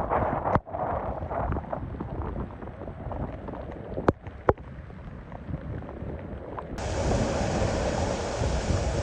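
Hurricane-force wind buffeting the microphone in gusts, with storm-driven waves breaking along the shore and two sharp clicks about four seconds in. A little before the end the sound cuts to a different recording of gusting storm wind.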